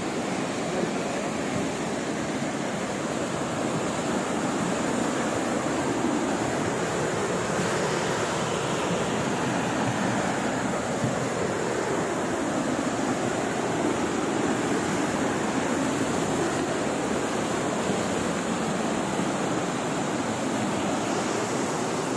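Rushing floodwater of a swollen, muddy river in spate: a steady, dense noise of churning water.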